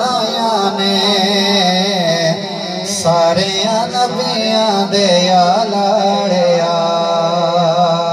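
A man's voice reciting a naat, an Islamic devotional song without instruments, into a microphone. He sings in long, wavering held notes.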